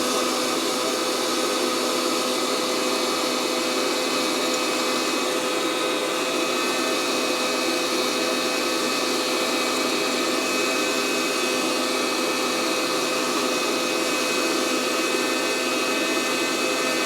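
Fresh Roast SR 800 fluid-bed coffee roaster running at the start of a roast, its fan blowing hot air up through a fresh charge of coffee beans: a steady rush of air with a steady whine.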